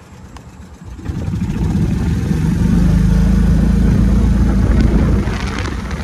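A motor vehicle's engine running close by: it comes up loud about a second in, after a single knock, and holds a steady low drone.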